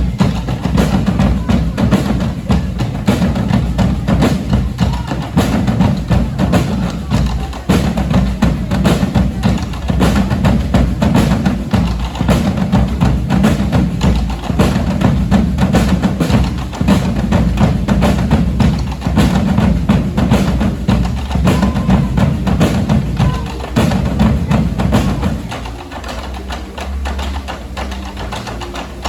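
A percussion band drumming together: bass drums and higher-pitched drums and blocks in a dense, driving rhythm that stops about three-quarters of the way through, leaving only quieter sound.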